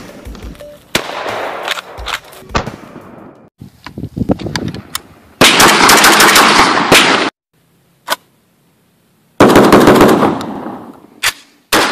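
Shotgun fired in rapid strings: several separate shots in the first few seconds, then two dense runs of shots, each lasting about two seconds, near the middle and about two-thirds of the way in.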